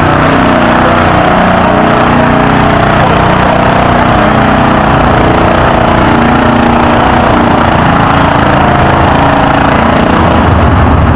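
Small single engine of an old yellow 1050 garden tractor running loud and steady on the pulling track. A deeper engine rumble joins near the end.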